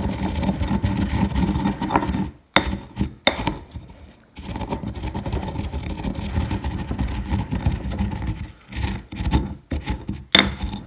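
Black peppercorns being ground in a mortar and pestle: the pestle scrapes and crunches steadily around the bowl, breaking down partly crushed pepper. It pauses briefly about two seconds in with a couple of sharp knocks, then grinds again, with a few sharp taps near the end.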